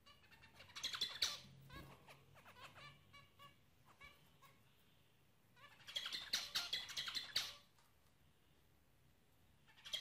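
Caged zebra finches calling. A flurry of short, rapid notes comes about a second in, then scattered single calls, then a dense, louder run of rapid notes from about six to seven and a half seconds. Another run starts right at the end.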